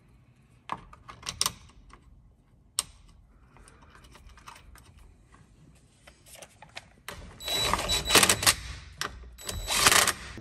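Cordless drill-driver running in two short bursts near the end, driving screws that fasten a plastic cover over a skid steer door latch. A few light clicks from handling the parts come before it.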